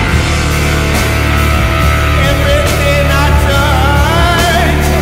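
Stoner rock band playing: heavy distorted guitars, bass and drums with cymbal crashes. A lead line bends and wavers over the riff from about two seconds in.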